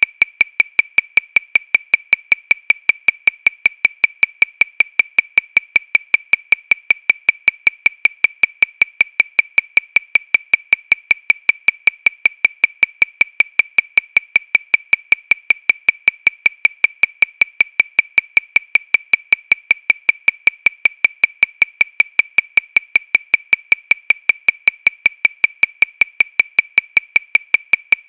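Metronome clicking at 314 beats per minute, about five short, bright clicks a second in a perfectly even, unchanging rhythm.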